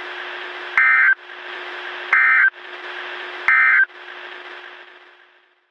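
Emergency Alert System end-of-message signal: three short bursts of warbling digital data tones, about 1.4 s apart, over radio static with a steady low hum. The static fades out near the end.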